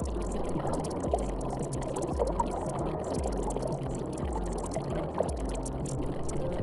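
Steady rushing, water-like noise with a soft low thump repeating about once a second.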